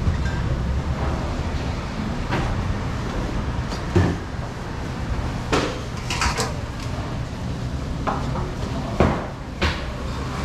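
Irregular knocks and clatters of fruit being cut and plastic clamshell trays being handled on a stainless-steel counter, over a steady low hum.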